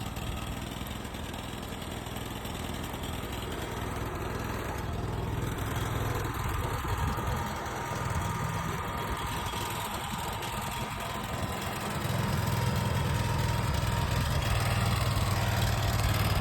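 Sawmill engine running steadily, growing louder about twelve seconds in.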